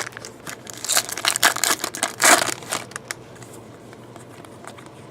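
Foil wrapper of a baseball card pack being torn open and crinkled, a dense crackling burst from about one to three seconds in, with scattered clicks and rustles around it.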